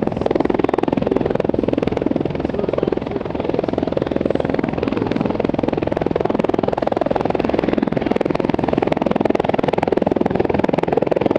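CH-146 Griffon helicopter flying, its rotor chop and turbine noise loud and steady, with a fast even beat.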